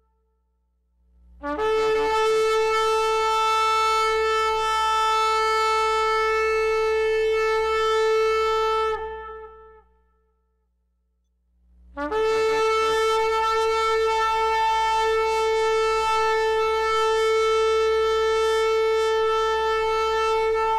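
Shofar (ram's horn) sounding two long, steady blasts on one held pitch, each about seven or eight seconds, with a pause of about two seconds between them.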